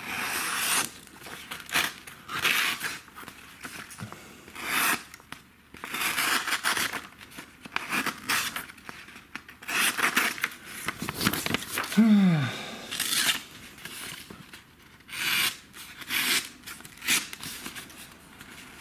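Fällkniven F1 knife blade slicing through printer paper in a series of separate rasping strokes with short pauses between them. The paper partly tears rather than cutting cleanly. About two-thirds of the way through there is a brief, low, falling vocal hum.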